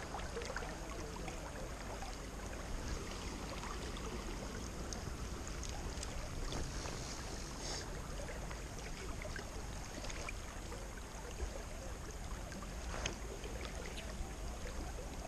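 Steady rush of river current flowing over a rocky riffle around a wading angler, with a few faint clicks from line and rod handling and one sharper click near the end.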